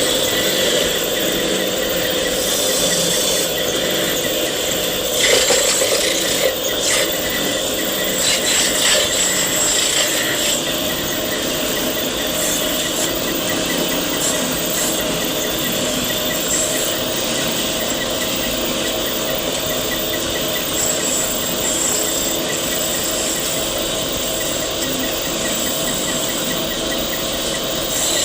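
Wood lathe running with a turning tool cutting the spinning wood: a steady motor hum under a scraping hiss, louder and rougher from about five to ten seconds in.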